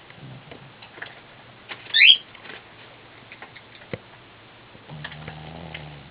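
Elderly Shih Tzu snoring in deep sleep. A high, squeaky nasal whistle rises briefly about two seconds in and is the loudest sound. A low, droning snore starts about a second before the end.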